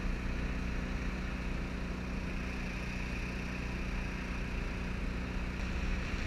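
A small boat's motor running at a steady speed, with wind and water rushing past the hull.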